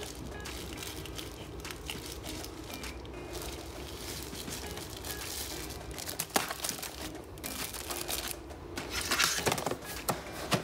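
Plastic bags crinkling and rustling as a hand rummages through a plastic storage drawer, loudest about nine seconds in, with a sharp plastic click about six seconds in and another near the end.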